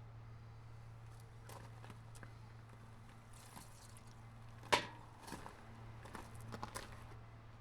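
Scattered light clicks and knocks of hand work on fuel filter parts, with one sharp click about halfway through and a quick run of small clicks after it, over a steady low hum.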